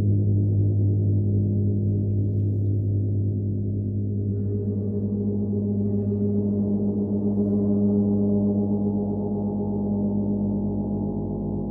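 A 60-inch rain gong ringing with a steady low hum and many layered overtones. It swells gently in the middle and eases off again, with no separate strikes standing out.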